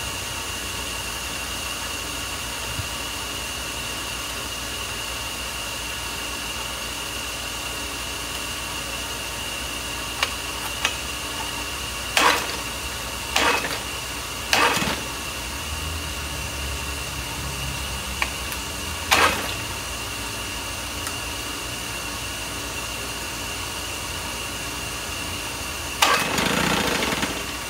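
Pull-start cord of a 1972 Johnson 6 hp two-stroke outboard yanked about five times, each pull a short rasping whirr as the engine turns over without catching, the last pull near the end lasting longer. A steady hiss with a thin high tone runs underneath.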